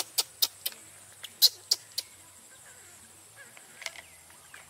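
Baby macaque squeaking: a rapid run of short, sharp, high squeals that drop in pitch, about eight in the first two seconds, then a few fainter squeaks near the end.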